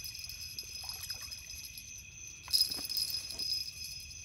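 Steady, high-pitched trilling of a night insect chorus, with a few soft rustles and knocks as a landed channel catfish flops on the leafy bank, the most marked about two and a half seconds in.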